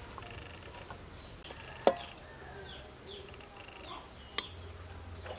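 Faint, repeated short bird chirps, with a sharp knock about two seconds in and a shorter click a little after four seconds.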